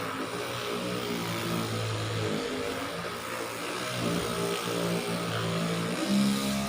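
Handheld electric 'dolphin' vibrating massager running, a steady motor hum whose pitch shifts up and down every second or two as it is worked over the body.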